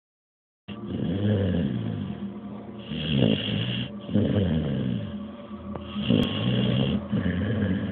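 Blue nose pit bull snoring in its sleep: a snore on each breath that wavers up and down in pitch, swelling and fading every second or two, starting just under a second in.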